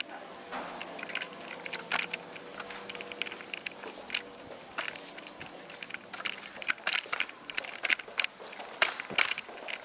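Irregular crackling and rustling with sharp clicks several times a second: handling noise of a hand-held camcorder being carried while walking, with footsteps mixed in.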